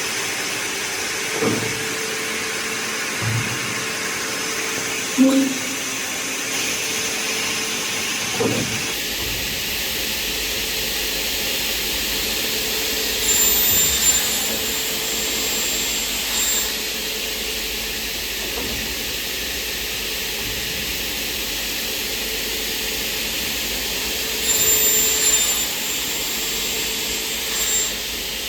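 Aluminum-profile sawing, drilling and milling machine running with a steady hiss of motors and air. There are a few short knocks early on, and two brief louder passages with high ringing tones, one around the middle and one near the end.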